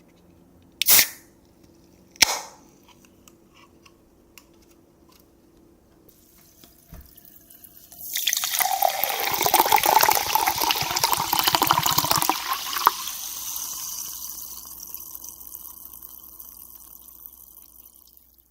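Soda opened with two sharp hissing pops, then poured into a glass of ice for about four seconds, the carbonation fizzing and crackling over the ice and slowly fading away.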